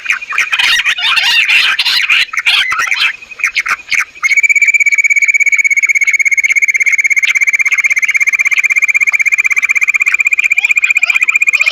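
Quail calls: a busy, chattering run of calls for about four seconds, then a loud, steady, very fast trill held on one high pitch.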